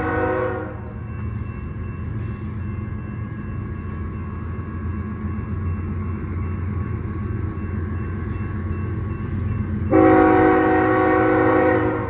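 BNSF 4266 diesel locomotive's multi-chime air horn sounding: a blast ends about half a second in, and a second loud blast starts about ten seconds in, holds for two seconds and cuts off. Between the blasts, the locomotive's low rumble carries on steadily as it rolls slowly down the street track.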